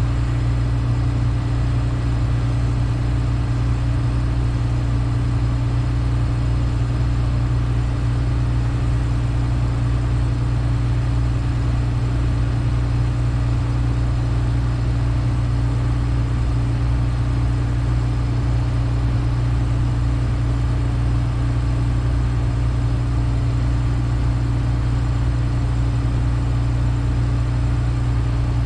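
Case 2144 combine's diesel engine idling steadily, heard from inside the cab as a constant low hum.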